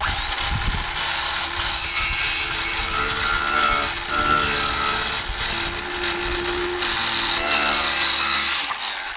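Ryobi cordless circular saw running and cutting through the top of a cardboard box. It starts abruptly and dies away near the end.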